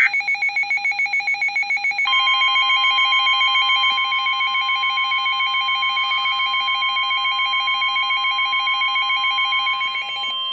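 Emergency Alert System warning alarm: a fast-pulsing electronic beep, about eight beeps a second, joined about two seconds in by a steady, single-pitch long warning tone that holds under it. The beeping stops just before the end while the steady tone carries on.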